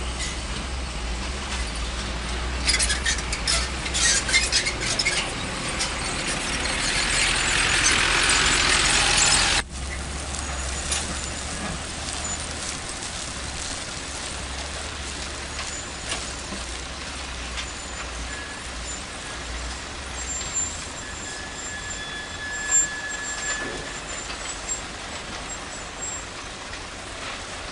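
Heavy diesel dump trucks running and driving on a dirt haul road, a steady low rumble with hiss. The sound swells for a few seconds, then changes abruptly about ten seconds in.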